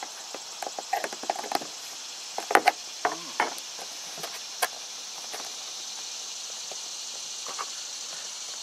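Plastic cup-holder insert being pressed and worked into a hole in a plastic boat hull, with a scatter of small plastic clicks and knocks in the first five seconds. A steady high-pitched insect buzz runs underneath.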